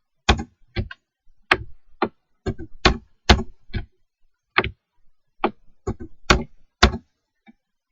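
Computer mouse clicking: about twenty sharp clicks at uneven intervals, some in quick pairs, stopping about a second before the end.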